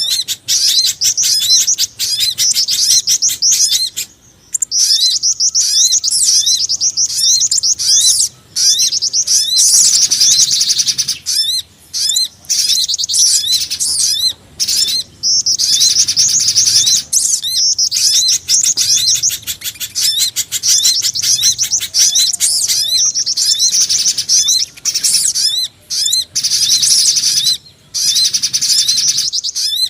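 Bird-lure recording of small forest birds calling, pijantung gunung (spiderhunter), sogon and jingjing batu combined: fast runs of high, thin chirps, broken by several brief pauses.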